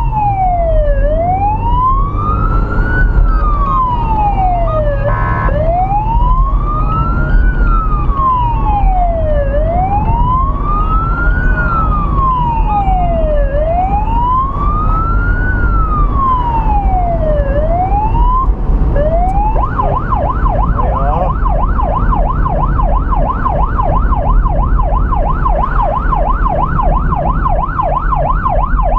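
Police car siren heard from inside the patrol car as it drives at speed: a slow wail rising and falling about every four seconds, switching a little past the middle to a fast yelp of about three sweeps a second. Steady engine and tyre noise underneath.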